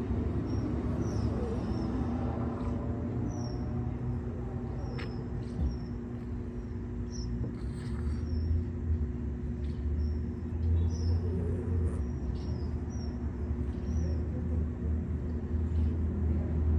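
Steady low mechanical hum, like an idling engine or machinery, running on without change. Faint, short high chirps of small birds come every second or so over it.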